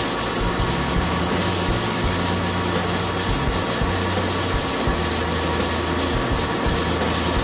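CNC machine running: a steady mechanical whine with a thin high tone above it and a low hum that shifts in pitch every second or so.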